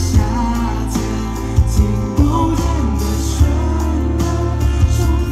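Live pop song: male group vocals over a band arrangement with a steady bass line and regular drum beats.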